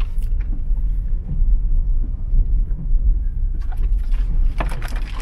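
Low, steady rumble of a Land Rover Defender driving slowly over a rutted dirt track, heard from inside the cabin, with a few short sharper sounds near the end.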